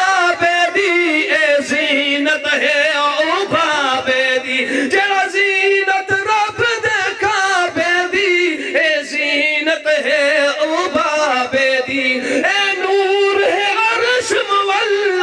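A man singing a Punjabi qasida in long, drawn-out melismatic phrases with heavy vibrato.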